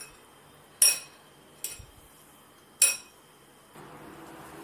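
Metal spoon clinking against a glass bowl while stirring yogurt raita: three sharp clinks about a second apart, the middle one fainter, each ringing briefly.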